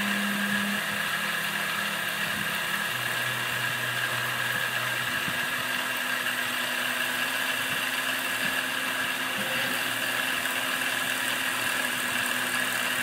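Grizzly G0704 benchtop mill, CNC-converted, cutting polycarbonate with a 1/4-inch end mill at just over 1,000 RPM: a steady whine of the spindle and cutter. Under it a low hum shifts pitch in steps a few times, as the axes change speed and direction on the pass.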